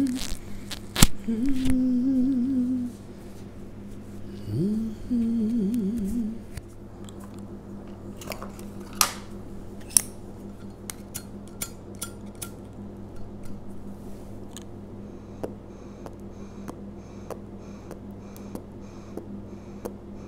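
A man hums two short wavering phrases in the first few seconds. After that come scattered light clicks and taps as a tobacco pipe and lighter are handled and lit, over a low steady hum.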